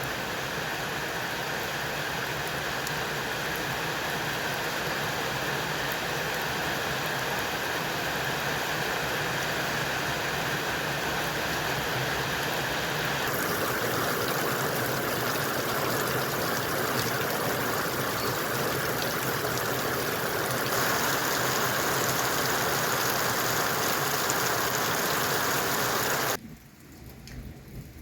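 Heavy rain falling steadily, its sound shifting abruptly twice and dropping to a much quieter level near the end.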